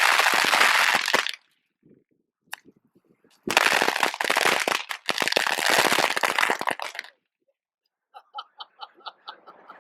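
Fireworks strapped to a Rubik's cube going off: two long spells of loud hissing and rapid crackling with a short lull between, then a quick run of fainter pops near the end.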